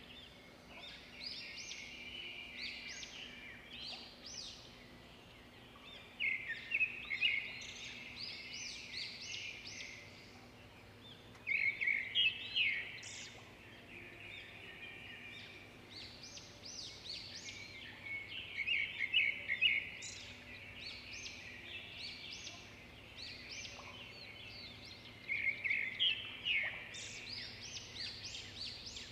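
Birds singing outdoors: bursts of quick, high chirping song phrases come every several seconds over a faint steady background hum.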